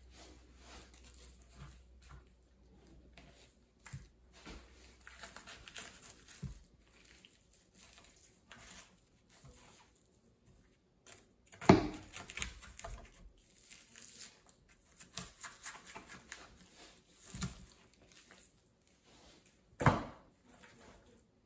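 A kitchen knife cutting and tearing raw turkey breast meat and skin away from the bone: intermittent soft tearing and rustling, broken by a few sharp thumps, the loudest about twelve seconds in and another near the end.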